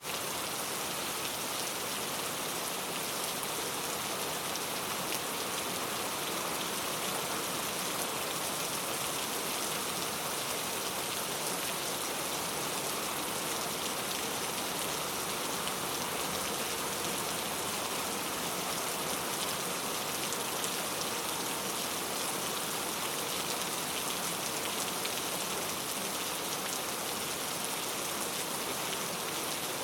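Heavy rain falling steadily, a dense even hiss of many drops on surfaces.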